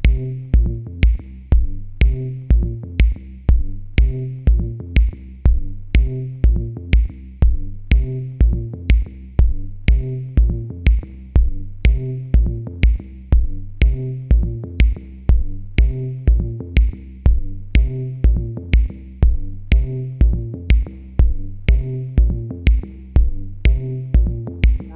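Background music with a steady electronic beat, about two beats a second.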